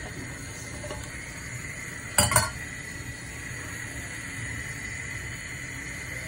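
Saucepan of vegetable soup on a gas hob, with a steady hiss throughout. A little over two seconds in comes a short cluster of loud clinks, okra being tipped from a steel bowl against the pan, then a wooden spatula stirs the broth.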